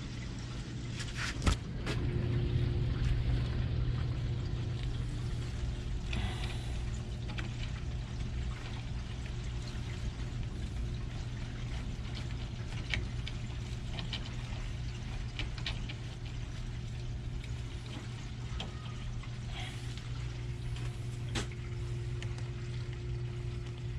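Hydronic circulator pumps running with a steady hum while water and trapped air gurgle and trickle through the boiler piping as the system is purged of air. A couple of sharp clicks, one about a second and a half in and one near the end.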